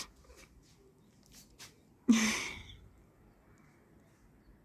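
A person's sharp, breathy exhale close to the microphone about two seconds in, fading over about half a second, with a few faint clicks before it.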